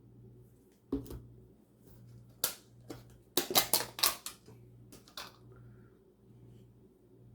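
Sharp clinks and clicks of a spoon against a bowl and a container while sour cream is scooped out: a single click, another, then a quick cluster of clinks about halfway through and one last click. A low steady hum runs underneath.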